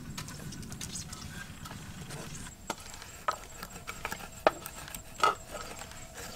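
A few light, sharp knocks and clicks, scattered and a second or so apart, over a faint steady background hiss.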